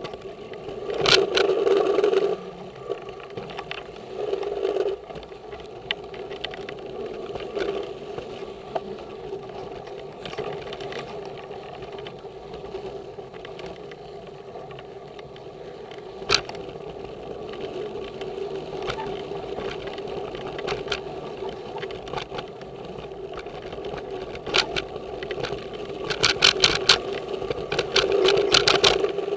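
Giant Trance X0 full-suspension mountain bike riding along dirt singletrack: steady tyre and wind noise, with clicks and rattles from the bike over bumps. There are louder rough stretches about a second in and near the end, the last one with a fast run of rattling clicks.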